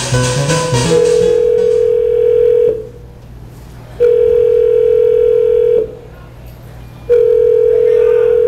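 Music stops about a second in, then a steady electronic tone sounds three times, each nearly two seconds long with about a second's gap.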